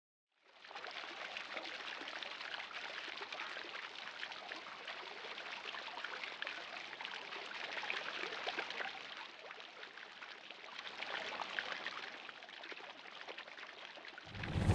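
A steady wash of running water, like a stream, with small trickling crackles. Music comes in just before the end.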